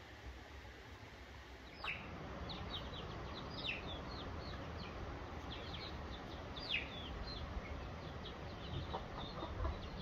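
Young chickens making many short, high peeping calls, several a second, starting about two seconds in after a faint hiss.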